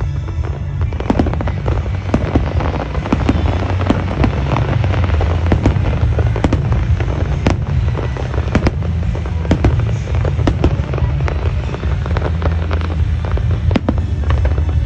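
Fireworks going off in quick, irregular succession: many sharp bangs and crackles over a continuous low rumble.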